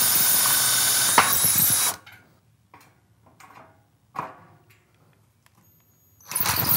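Cordless hammer drill with a masonry bit boring through an aluminum door frame into concrete block, a steady run that stops about two seconds in. Near the end the drill starts again, driving a masonry screw into the pre-drilled hole.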